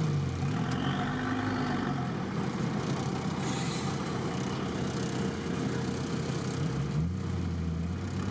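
Off-road vehicle's engine heard from inside the cabin, running at low speed with the revs rising and falling as it crawls along a muddy track. Near the end the engine takes on a deeper, louder note.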